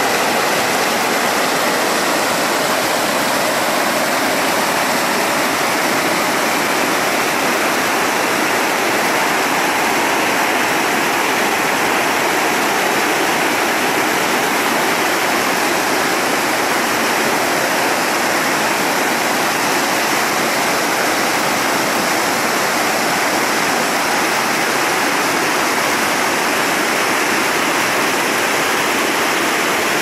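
White water of a waterfall cascade pouring into a stream pool, a loud, steady rush of water close to the microphone.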